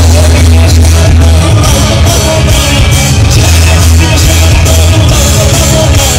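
Live band music blaring loudly through large PA speakers: heavy bass and a steady beat under amplified guitar, in a rock style.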